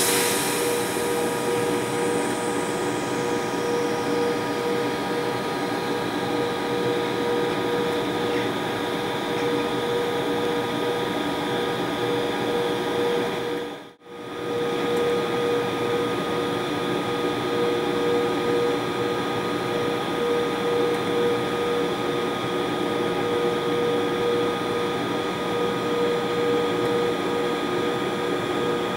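British Rail Class 92 electric locomotive standing still with its cooling fans and electrical equipment running: a steady, fan-like hum with a strong steady tone. A high whine falls away over the first few seconds, and the sound cuts out for a moment about halfway through.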